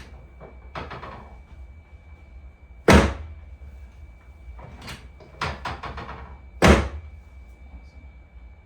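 Chiropractic adjustment thrusts on a treatment table during hip and pelvis work. There are two loud, sharp thuds about four seconds apart, with a quick run of softer knocks between them.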